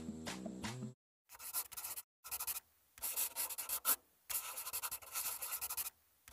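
Music cuts off about a second in, then the scratching of writing on paper follows in four short runs of scratchy strokes, with dead silence between them.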